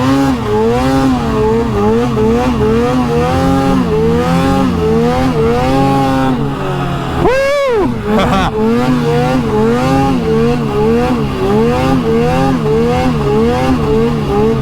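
Two-stroke snowmobile engine (an Arctic Cat 858) running under load while riding, its pitch rising and falling every half second or so with the throttle. A little past halfway it revs up sharply, then drops away almost to nothing for a moment before picking up again.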